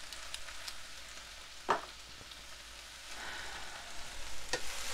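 Chicken pieces frying in olive oil in a skillet, a steady sizzle that grows louder about three seconds in, with a few light clicks.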